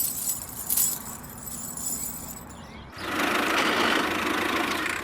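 Small motor running with a rattle; a louder steady noise sets in about three seconds in.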